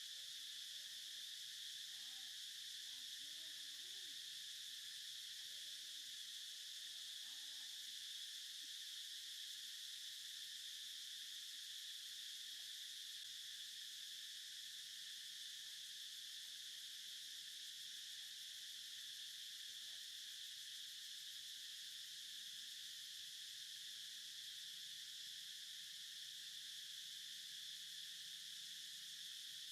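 Faint, steady high-pitched insect chorus of crickets or cicadas, droning without a break. Faint short rising-and-falling low calls or voices sound on and off during the first several seconds.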